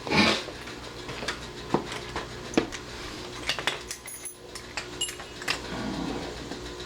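Light clicks and clinks of small lock parts being handled, scattered irregularly, with one louder burst of rustling noise at the start.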